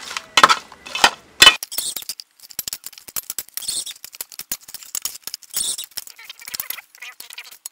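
Metal ladle clinking and scraping against an aluminium pot while mixing raw fish-head pieces with herbs and seasoning: a few sharp knocks in the first second and a half, then a quicker run of lighter clicks and scrapes.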